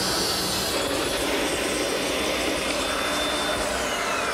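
Portable table saw running as a strip of wood is fed through the blade with a push stick. Near the end the saw's whine starts falling in pitch as the motor winds down.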